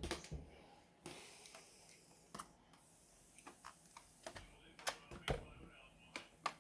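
Scattered light clicks and taps of plastic and metal laptop parts being handled during disassembly, the sharpest two clicks coming about five seconds in.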